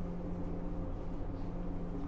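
Inside a JR 103 series electric train's motor car: a steady low hum with a few unchanging tones.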